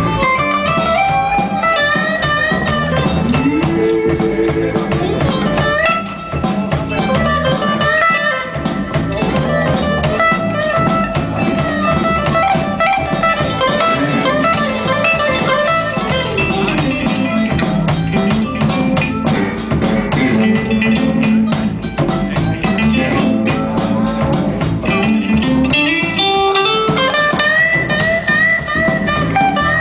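Live blues band playing an instrumental break: a guitar lead with bending, sliding notes over a steady, fast drum beat and bass.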